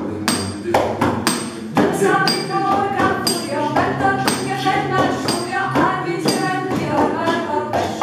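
A group of voices singing together to an acoustic guitar, over a steady beat of sharp percussive taps about three a second; the singing comes in about two seconds in.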